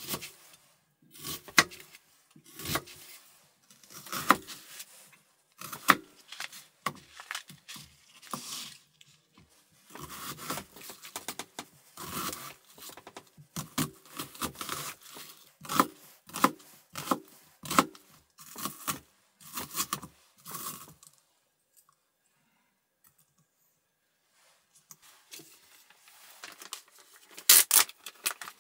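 Kitchen knife slicing and dicing a raw onion on a cutting board, short crisp cuts at an uneven pace, singly and in quick runs, stopping about two-thirds of the way through. Near the end a plastic bag is handled with a few sharp rustles, the loudest sounds here.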